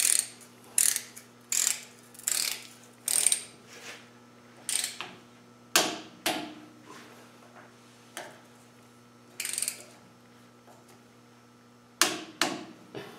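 Ratchet wrench spinning bolts into a Land Rover Defender's front hub, in short runs of clicking ratchet strokes about one a second at first, then further apart.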